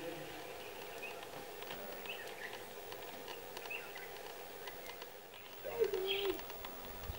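Small birds chirping on and off, and about six seconds in a short, low, wavering cooing call that dips in pitch.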